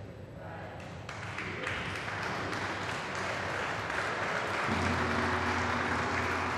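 A large hanging gong is struck about a second in, and a small group's applause builds up after it. A low steady hum joins near the end.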